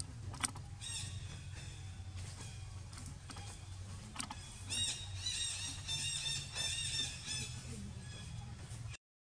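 High, rapid chirping calls, several a second, come in a dense run from about five to seven seconds in over a steady low rumble. The sound drops out to silence briefly near the end.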